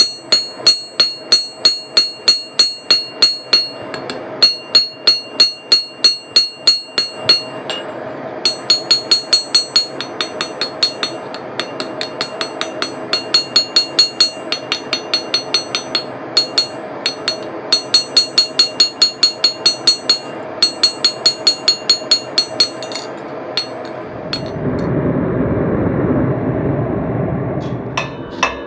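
Forging hammer striking steel on an anvil in runs of quick blows, about three a second, each with a bright ringing note, with short pauses between runs. Near the end the blows stop and a steady rushing noise lasts a few seconds.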